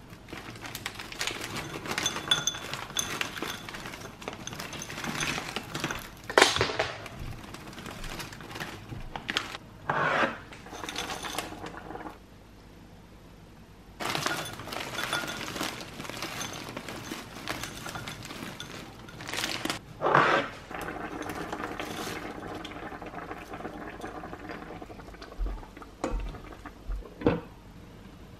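Frozen sliced pepper and vegetable pieces tipped from a plastic bag, clattering and clinking into a glass bowl, with the bag crinkling and a few louder clacks. There is a short quiet gap about halfway through.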